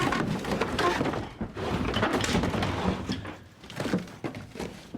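A run of thuds and clattering knocks, busiest in the first three seconds and thinning out after.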